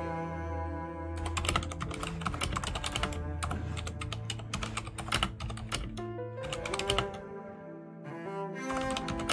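Typing on a computer keyboard, quick runs of keystrokes with short pauses, over background cello music.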